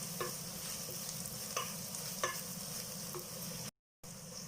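Shallot and spice masala frying in coconut oil in a kadai, sizzling steadily as it is stirred, with a few light ticks of the spoon on the pan. The sound cuts out briefly near the end.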